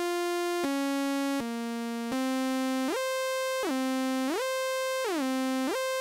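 Waldorf Blofeld synthesizer playing a single bright sawtooth tone. Four short held notes step downward, then the last note is bent up a full octave with the pitch wheel and back, gliding smoothly up, down, up, down and up again. This shows the pitch bend range set to 12 semitones.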